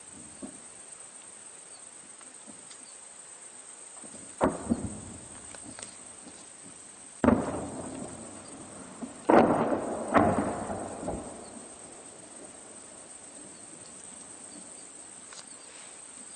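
Distant artillery booms: four sudden blasts, each trailing off in a long rolling echo. The last two come about a second apart, and the third and fourth are the loudest.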